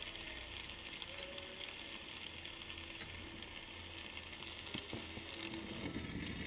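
Brazing torch flame hissing steadily against copper refrigerant line joints as they are brazed.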